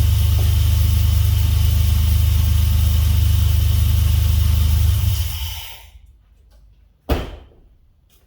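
Dodge 3.7 L V6 engine running steadily at idle, now that a new reluctor ring has cured its no-start. About five seconds in it is switched off and runs down, and a sharp knock follows about two seconds later.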